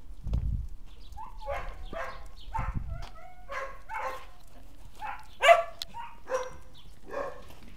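A dog barking and yipping in a quick series of short, high barks, about a dozen of them, with one louder bark about five and a half seconds in.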